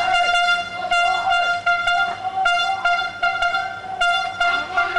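A horn sounding in repeated loud blasts at one steady pitch, broken by short gaps.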